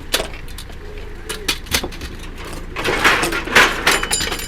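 Scrap metal being handled off a van, knocking and clanking in a string of sharp impacts that crowd together into a dense clatter about three seconds in.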